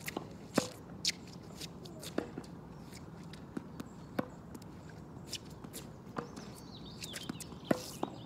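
Tennis ball being struck by rackets and bouncing during a rally: sharp pops every second or two, irregularly spaced.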